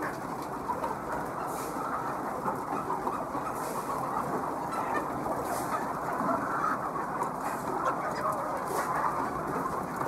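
A large flock of laying hens in a crowded shed clucking and chattering all together, a dense, continuous din of overlapping calls.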